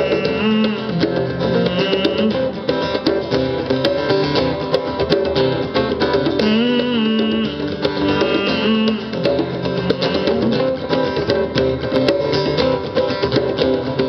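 Live acoustic guitar strummed steadily in an instrumental break between verses, with a second melodic line of held, gliding notes over it.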